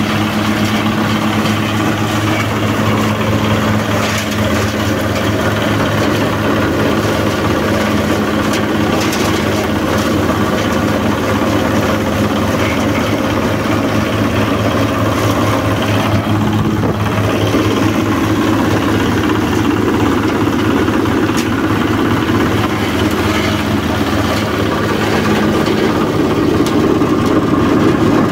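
Compost shredder driven by a small red single-cylinder diesel engine, running steadily with an even engine hum and the whir of the shredder.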